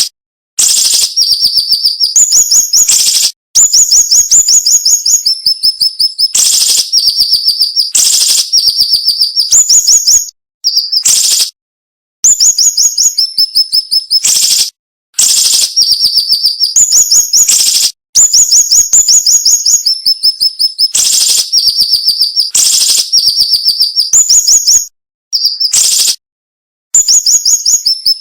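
Siri-siri bird singing a sharp, rapid string of high notes in dense phrases of two to three seconds, with short pauses between them.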